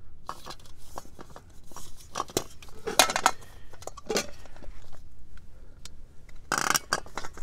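Light metallic clicks and clinks of thin aluminium stove parts being handled as a gas burner is fitted into a Trangia 25 windshield base, with a short rustling noise near the end.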